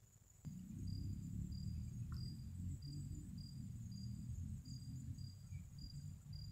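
Insects calling: a steady high buzz with a short high chirp repeating a little over twice a second, under a low rumble that starts about half a second in.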